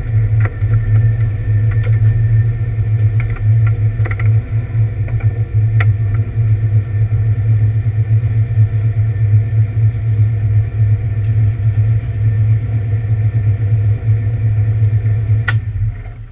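Camaro race car engine running steadily with a misfire, with a few sharp cracks along the way; the sound drops away suddenly near the end.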